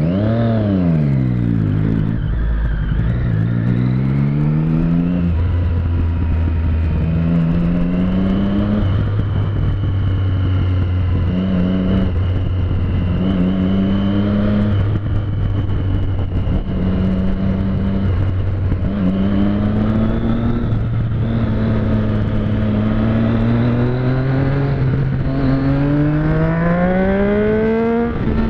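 Motorcycle engine heard from the rider's seat, its revs repeatedly climbing and dropping back as the throttle is opened and closed in slow traffic, with a long rising rev near the end as it accelerates.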